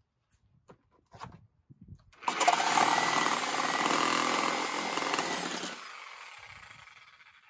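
Reciprocating saw cutting through 3-inch PVC pipe: it starts about two seconds in, runs at full speed through the pipe for about three and a half seconds, then winds down gradually as the cut finishes.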